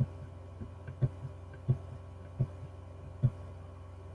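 A steady low electrical hum with dull low thumps at irregular intervals, about five louder ones roughly a second apart.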